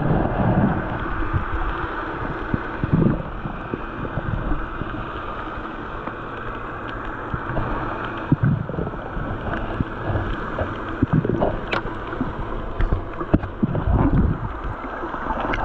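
Underwater sound picked up by a camera held underwater: a steady muffled rush and low rumble of water, with a few scattered sharp clicks.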